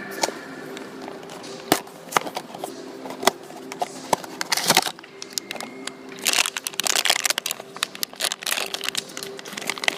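Small cardboard blind box and its inner wrapper being opened by hand: sharp clicks and snaps of cardboard, with several stretches of crinkling wrapper in the second half.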